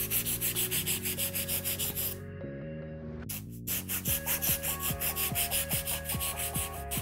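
Hand nail file, a 150/150-grit zebra file, rasping back and forth across the side of a sculpted acrylic nail in quick strokes, several a second. The filing pauses briefly about two seconds in, then starts again.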